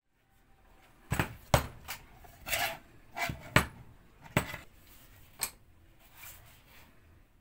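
Thin wooden boards being handled and set down: a string of sharp wooden knocks and clacks, about eight in five seconds, with short scrapes between them. A soft rustle of paper sheets follows near the end.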